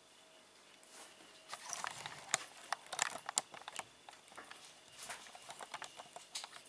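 A kitten eating raw minced meat, chewing and licking its lips: irregular wet smacking clicks, thickest about a second and a half in, with a lighter run near the end.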